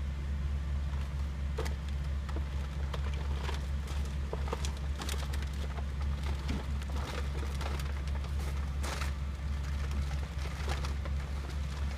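Plastic garbage bags rustling and crackling in short bursts as a person shifts and climbs on the pile, over a steady low hum.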